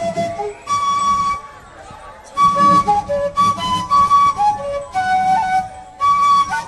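Andean festival music, a flute playing a melody of held notes over a low beat, with a brief lull about a second and a half in.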